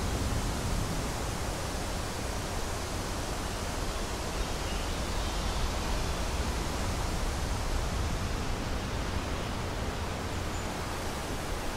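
Steady wind noise on the microphone: a constant rush with a low, fluttering rumble.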